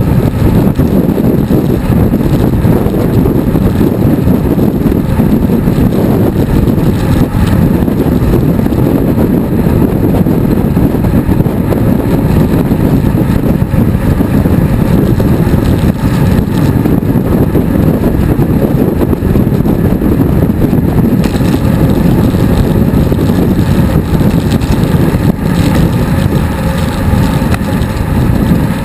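Wind rushing over a bicycle-mounted action camera's microphone while riding: a loud, steady low rumble.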